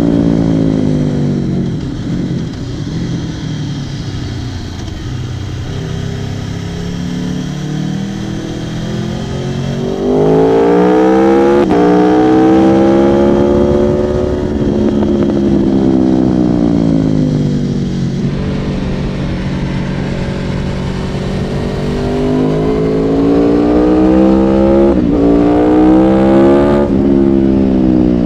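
Aprilia Tuono motorcycle engine at racetrack speed, its pitch falling off early on, then rising hard about ten seconds in and sweeping back down as the bike slows. It climbs again toward the end, with a brief sudden drop in pitch near twenty-five seconds from an upshift, and keeps revving up.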